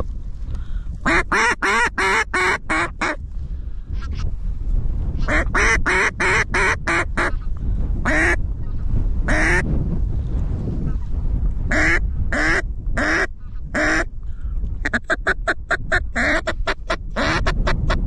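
Mallard duck call blown close up: several runs of quick, sharp quacks, a couple of longer single quacks, then a faster run of short notes near the end, calling to ducks coming in to the decoys. A steady low rumble runs underneath.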